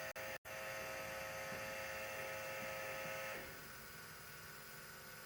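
A steady electrical or machine hum made of several even tones, which cuts off about three and a half seconds in.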